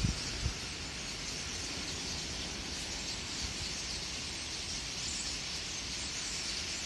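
Massed chatter of a large starling flock, many calls blending into a steady high hiss, over a low rumble.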